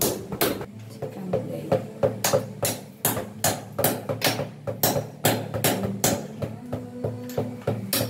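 A mallet tapping a ceramic wall tile to bed it into the mortar, in quick repeated knocks at about three a second, over background music.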